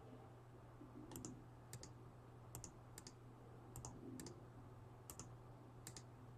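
Near silence with faint, sharp clicks, a little under two a second and unevenly spaced, over a low steady hum.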